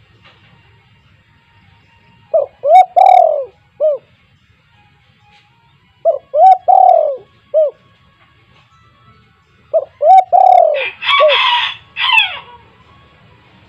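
Spotted dove cooing: three phrases of several hollow, arched coo notes, a few seconds apart. A brief harsher, higher-pitched sound overlaps the last phrase.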